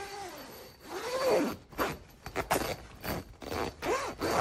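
Stiff zipper on a fabric pop-up shower tent being tugged in a series of short, sticking pulls, with the tent fabric rustling; the zipper is tough to work. A person's voice makes a couple of short, wordless sounds, about a second in and near the end.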